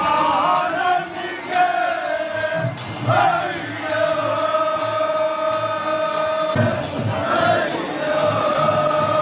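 A group of voices singing a Heeda, a devotional song, in unison, holding long drawn-out notes that slide between pitches. In the last few seconds, sharp regular beats come in at about three a second.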